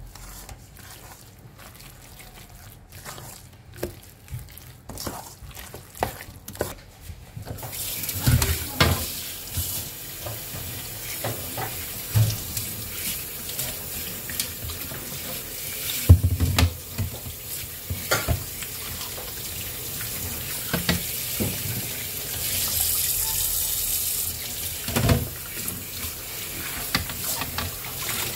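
Hand squelching and mixing minced chicken with raw eggs in a stainless steel bowl, with scattered small clicks. About seven seconds in, a kitchen tap comes on and runs steadily into a stainless steel sink as hands are rinsed under the stream, with a few knocks against the sink.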